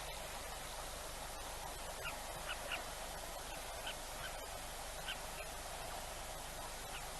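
Birds giving about eight short, sharp calls, in ones and quick pairs, over a steady background hiss.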